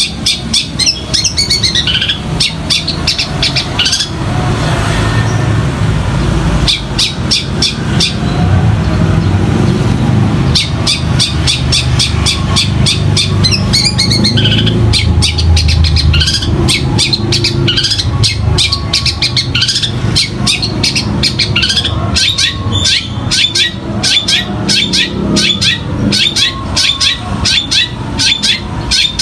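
Long-tailed shrike (cendet) singing a fast, chattering string of sharp chirps that includes mimicked sparrow chirps, with brief pauses. A steady low rumble runs underneath, heaviest through the middle.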